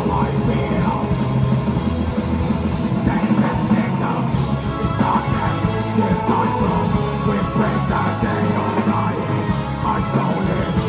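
Black metal band playing live: distorted electric guitars, bass guitar and drum kit.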